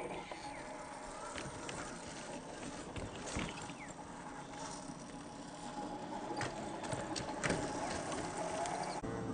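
Radio-controlled scale crawler driving over rocky ground: a steady electric motor and gearbox whine with scattered clicks and knocks of tyres and chassis on stones.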